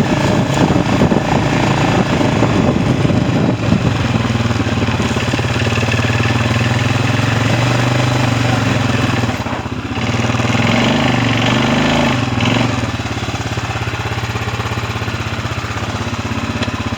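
Small engine of an off-road vehicle running steadily while under way. It dips briefly about ten seconds in and runs a little lower in the last few seconds.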